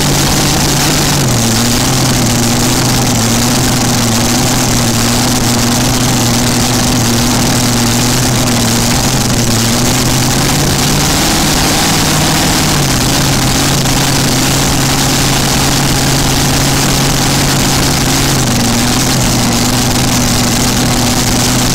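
Supercharged V8 of a pulling machine running with open zoomie headers at a low, steady idle, its note shifting slightly up and down a few times.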